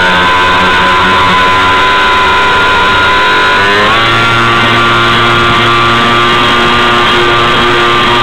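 Radio-controlled model boat's motor running, heard through a camera on its hull: a steady whine over water noise, its pitch rising quickly about three and a half seconds in, then holding steady.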